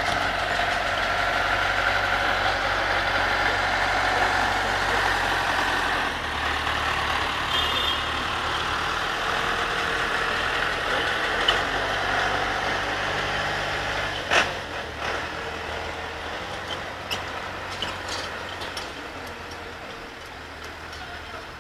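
John Deere tractor's diesel engine running at low speed as it passes close by pulling a trailer, followed by a van engine, the engine noise easing off after about six seconds and fading toward the end. A single sharp knock about two-thirds of the way through.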